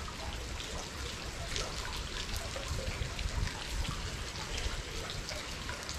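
Rain and drips pattering onto water: a steady hiss scattered with many small drip ticks.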